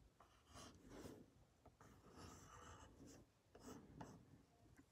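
Faint scratching of a pencil on paper in a few short strokes, drawing lines.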